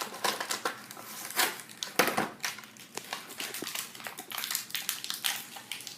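Plastic toy packaging crinkling and rustling in irregular bursts with small clicks and snaps as figures are pulled off their packaging.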